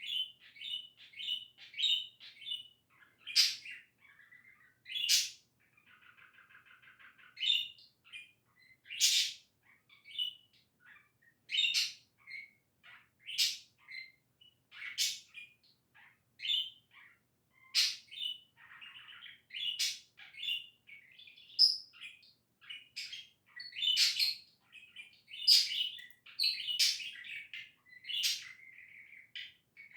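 Pet budgerigar chattering and warbling non-stop: a fast run of sharp chirps and whistles with scratchy, buzzy chatter in between, the contented warble of a happy budgie.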